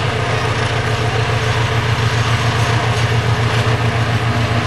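SM42 diesel-electric shunting locomotive hauling passenger coaches past at close range. Its diesel engine runs with a deep, steady note that pulses quickly.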